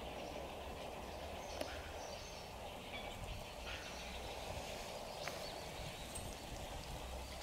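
Outdoor ambience: a steady wash of distant noise and low hum, with a few faint short chirps and ticks scattered through it.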